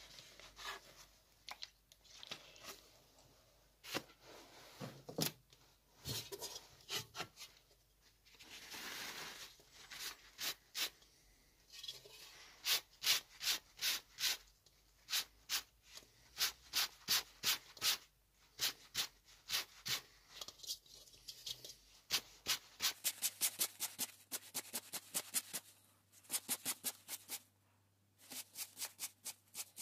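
Paper towel rubbed back and forth over the painted steel shell of an M40 helmet, wearing down the fresh paint to age it. It comes in runs of quick scraping strokes, about three a second in the middle and faster, about six a second, later on, with a longer paper rustle near the start.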